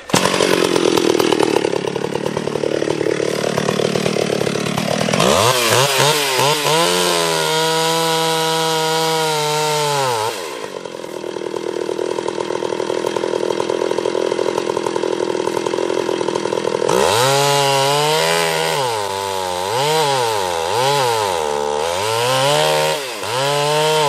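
Two-stroke chainsaw cutting into a pine trunk. The engine revs up about five seconds in and holds high, drops back near the middle, and rises and falls repeatedly in the last several seconds.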